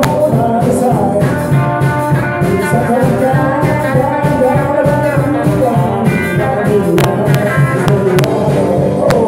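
Live rock-and-roll band playing loudly: electric guitar, drum kit and a lead singer's voice, with cymbal crashes about seven seconds in.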